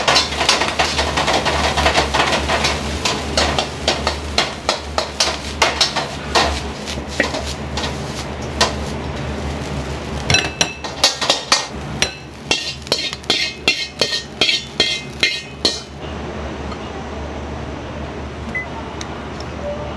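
Ramen kitchen work: metal utensils, pots and bowls knocking and clinking, with a quick run of sharp knocks past the middle, over a steady low hum.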